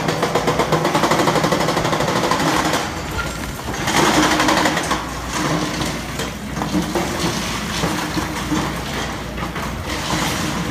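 A demolition excavator working on a concrete structure: a fast, even mechanical hammering for the first couple of seconds, then less regular knocking and grinding of concrete under the machine's running engine.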